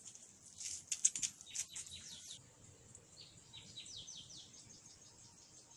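Faint birdsong: quick high chirps, then a run of short falling notes repeated several times a second.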